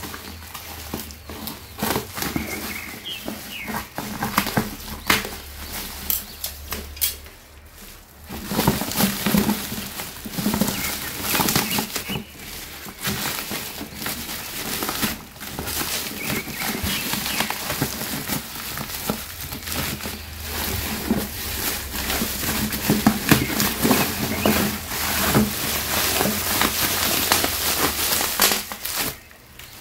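Black plastic mailer bag crinkling and rustling as it is cut with scissors and torn and crumpled off a boxed toy by hand, an irregular run of crackles and crunches.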